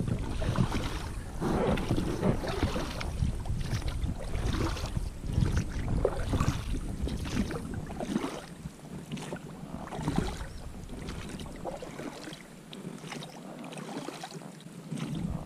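A hooked fish splashing and thrashing at the surface close to the boat as it is reeled in, in irregular splashes.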